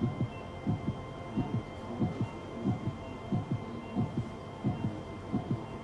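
A heartbeat, the newly transplanted heart beating, as regular low thumps about three a second over a faint steady hum.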